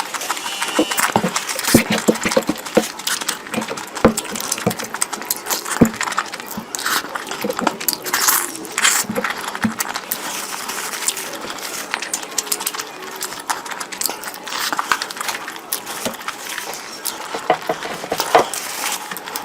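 Close-miked eating sounds: a person chewing and smacking on a mouthful of food, with many small wet clicks and crackles and a couple of longer slurping smears.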